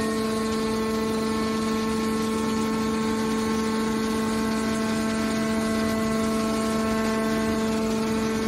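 Hydraulic can baler's pump unit running with a steady, even hum that starts abruptly and holds one pitch.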